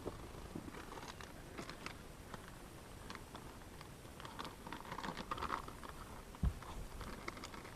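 Faint, scattered small clicks and rustles of gear being handled in a boat, with one dull knock about six and a half seconds in.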